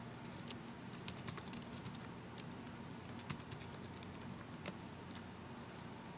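Faint typing on a computer keyboard: a run of quick keystrokes as a password is entered, with one slightly louder key press near the end.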